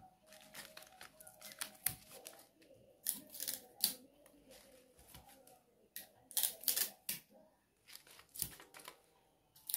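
Faint paper rustling and crinkling in short bursts, about five times, as paper pattern pieces are handled.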